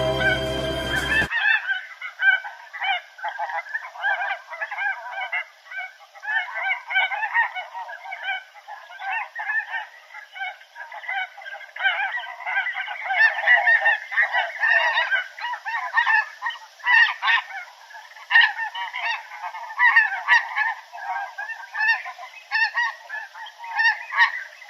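A flock of snow geese calling, many short honks overlapping continuously. A song cuts off about a second in.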